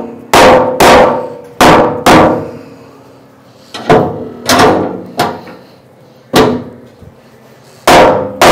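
A hammer striking a sheet-metal fuel tank about eleven times in an uneven rhythm, each blow followed by a short metallic ring, with a pause of over a second after the first four blows. The blows are driving the tight-fitting tank down to seat it, and it is not yet all the way down.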